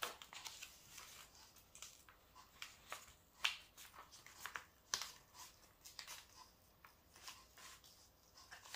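Faint, irregular rustling and crackling of the protective sheet being peeled back from a sticky diamond painting canvas, with two sharper crackles about three and a half and five seconds in.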